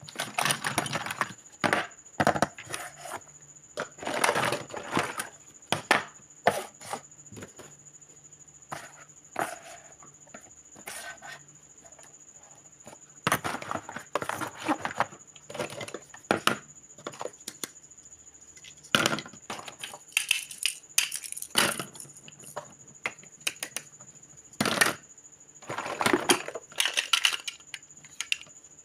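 Hard plastic toy kitchen pieces and play fruit clattering and knocking together as they are rummaged through, picked up and set down on a table, in irregular bursts of clicks with short pauses between.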